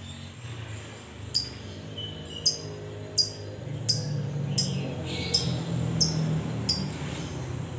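Fischer's lovebird giving a run of short, sharp, high ticking chirps, about eight of them evenly spaced roughly 0.7 seconds apart. A low rumble grows underneath from about halfway.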